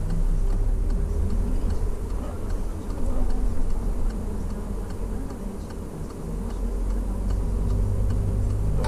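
Peugeot 308's turn-signal indicator ticking at an even pace over the low hum of the engine and road noise inside the cabin.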